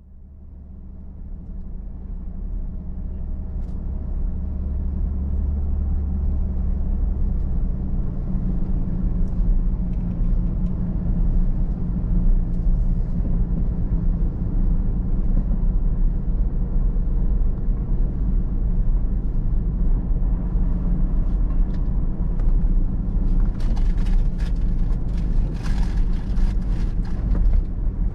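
A vehicle driving, a steady low engine and road drone that fades in over the first several seconds, with a run of sharp clicks and rattles near the end.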